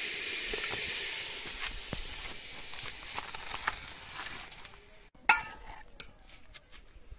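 Snail curry sizzling in a hot aluminium pot, a steady hiss that fades away over the first two to three seconds. Then a few light clinks and one sharp metal clink about five seconds in, the steel ladle knocking against the pot.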